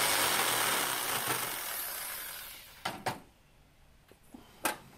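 Black & Decker jigsaw running as it notches a composite steel adaptor plate, its noise dying away over about two seconds as the cut ends. Then a few sharp knocks as the saw and plate are handled.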